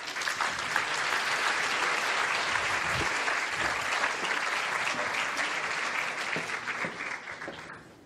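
Audience applauding in a large hall, steady throughout and fading out near the end.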